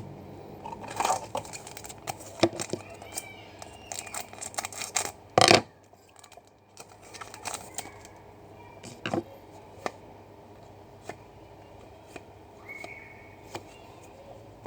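Trading cards being handled and flipped through: intermittent light clicks, slides and rustles, with the loudest rustle about five and a half seconds in.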